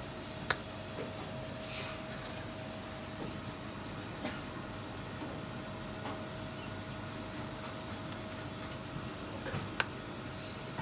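Steady mechanical hum of kitchen equipment with a faint constant tone. Two sharp clicks break through, one about half a second in and one near the end.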